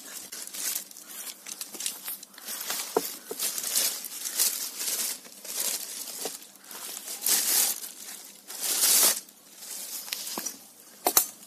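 Packaging crinkling and rustling in irregular bursts as it is handled and pulled off, with a few light knocks.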